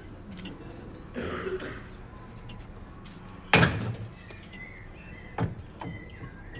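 Household knocks: a short rushing noise about a second in, then one loud thump with a brief ringing tail halfway through, and two lighter knocks near the end.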